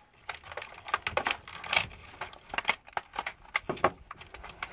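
Old scissors cutting and crinkling plastic packaging, a run of irregular snips, clicks and crackles.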